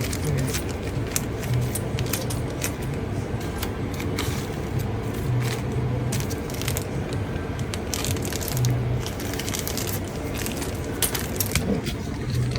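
Small metal clicks and clinks, many irregular taps, from gold jewellery and hand tools being handled on a goldsmith's bench, over a steady low workshop hum.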